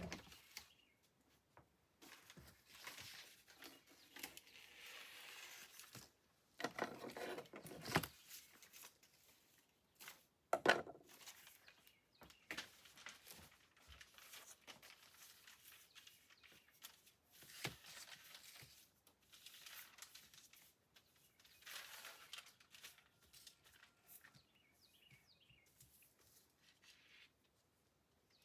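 Paper being handled by hand while a torn sheet is patched: intermittent rustling, crinkling and tearing, with a sharp click about ten seconds in. Faint bird chirps come in near the end.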